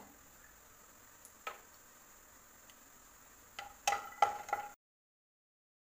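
Wooden spatula knocking and clinking against a non-stick kadai as cashews are stirred in hot ghee: a single faint click early on, then a quick cluster of sharp clicks with short ringing near the end. The sound then cuts out to dead silence.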